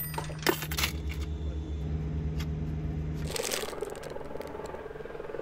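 A coin dropped into a wooden honesty cash box, a single clink about half a second in, over a steady low hum. The hum cuts off after about three seconds, followed by a short crunchy bite into a piece of crumbly Swiss cream fudge.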